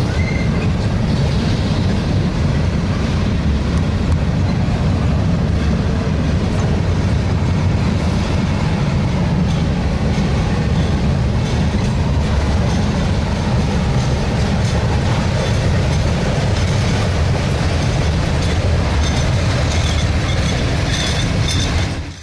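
Freight cars rolling across a steel railroad bridge: a steady, heavy rumble of wheels on rail, with some high-pitched ringing near the end.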